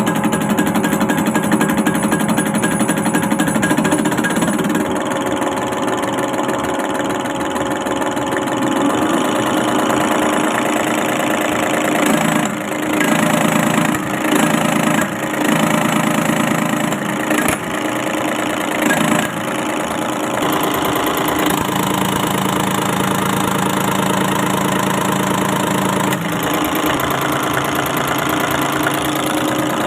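Diesel engine running while its fuel injection pump is being set, its speed changing up and down several times midway before settling to a steady run.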